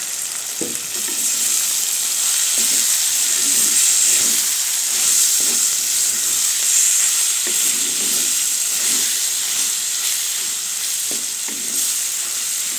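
Vegetables sizzling in hot oil in a clay kadai while a wooden spatula stirs them, working in the spice powder. A steady high hiss with irregular scraping strokes of the spatula against the pot.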